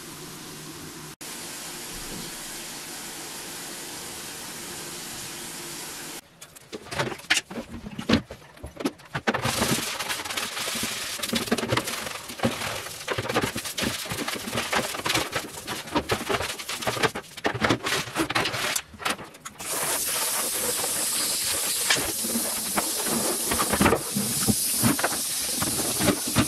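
Stiff broom bristles sweeping spilled cat litter across a tiled floor into a metal dustpan. This is followed by irregular scrubbing and knocking on a plastic cat litter box. From about twenty seconds in, a steady hiss of water sprays from a handheld shower head.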